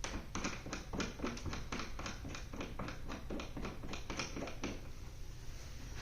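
A door stop being adjusted and tightened by hand: a quick run of light clicks and taps, about five a second, stopping a little before the end.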